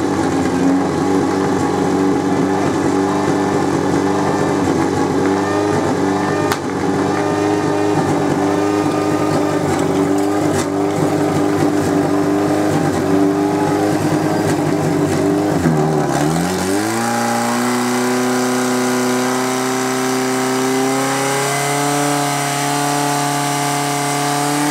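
Portable fire pump's engine running at high revs. About sixteen seconds in its pitch drops sharply and climbs back, then it holds a higher steady note that rises a little more near the end.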